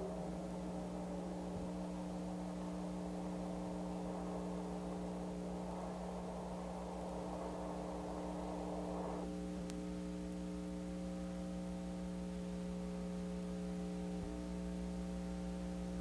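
Steady electrical mains hum and buzz, several steady tones over a faint hiss. A slightly brighter hissy layer drops away about nine seconds in.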